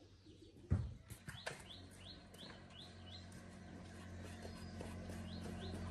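Small birds chirping in a quick run of short calls, over a low steady engine hum that grows gradually louder. A single sharp thump comes just under a second in.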